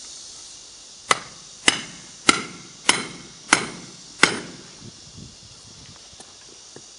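Six hammer blows on metal, about one every 0.6 seconds, each ringing briefly, as the ground connection for a stud welding machine is fixed in place.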